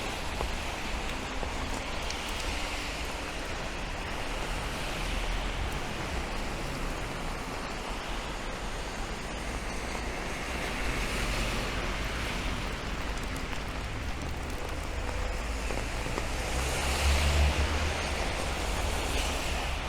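Steady rain with traffic on a wet city street: vehicles pass with a swelling tyre hiss a few times. The loudest pass, with a low rumble, comes about seventeen seconds in.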